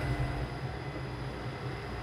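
Steady low drone of engine-room machinery, with faint steady high tones over it.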